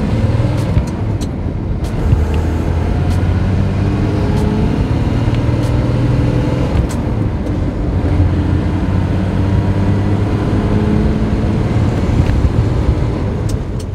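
Maserati 3500GT's 3.5-litre twin-cam straight-six running under load as the car is driven, heard from inside the cabin, its note rising and falling gently. A few sharp ticks sound over it.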